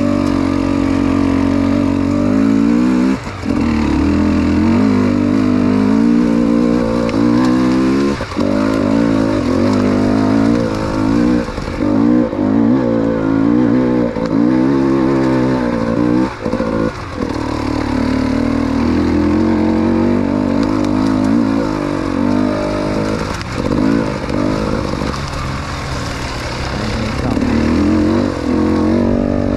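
Two-stroke TBI enduro motorcycle being ridden during its break-in, the engine pitch rising and falling with the throttle and dropping away briefly several times as the throttle is closed.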